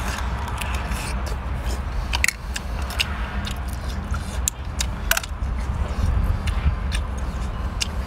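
Cooked shellfish shells clicking and scraping as they are pried open by hand and the meat is sucked out, with a few louder cracks, over a steady low rumble.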